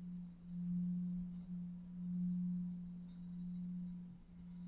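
Low, steady pure-toned meditation drone, swelling and fading roughly every second and a half.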